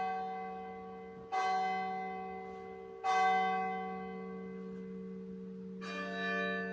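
Church bell striking the hour: three slow strokes, each ringing on and fading into the next, the last, near the end, with a different, lower set of tones.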